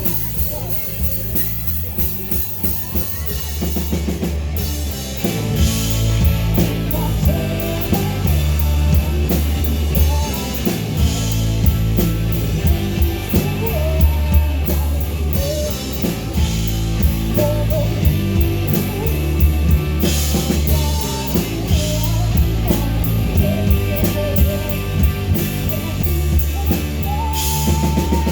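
Live rock band playing a song, with a full drum kit, bass and electric guitars; it grows fuller and louder about five seconds in.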